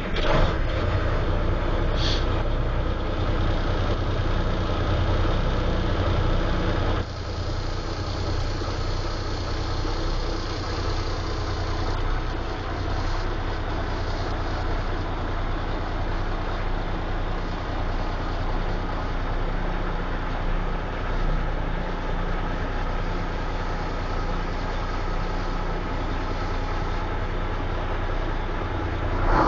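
1975 Mack CF600 fire truck's Thermodyne diesel engine catching at the very start and settling into a steady idle, with a brief hiss about two seconds in. About seven seconds in the idle drops to a slightly lower, quieter run and holds there.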